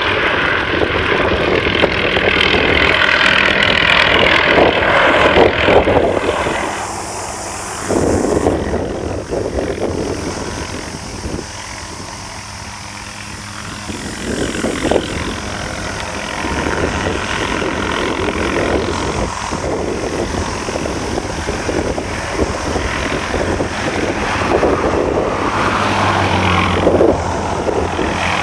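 Hughes 500 police helicopter running, with its rotor and turbine engine loud. The sound drops away for a few seconds near the middle, then builds again.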